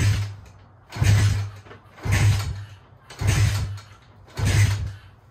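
Piranha YX 125cc pit bike engine kicked over five times, about one kick a second, turning over without firing because a compression gauge is screwed into the spark plug hole. It is a compression test, with the gauge holding at about 98 to 99 PSI.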